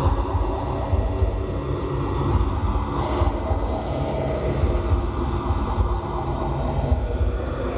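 Live experimental noise music from circuit-bent toys and homemade electronic devices: a loud, dense low rumble with several steady droning tones held over it.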